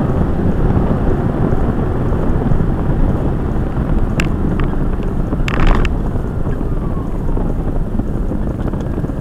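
Car driving on a road, heard from inside the cabin: a steady low rumble of tyres and engine, with a few short sharp clicks about four to six seconds in.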